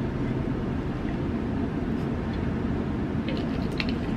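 Steady low rumble of outdoor background noise, with a few faint short clicks near the end.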